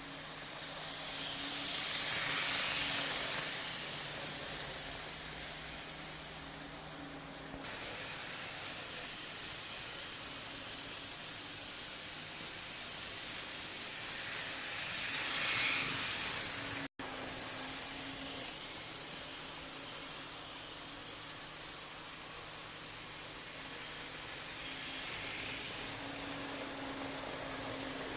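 Model train running on its track: a steady hissing whir that swells loudest about two seconds in and again just past the middle, with the sound cutting out for an instant shortly after.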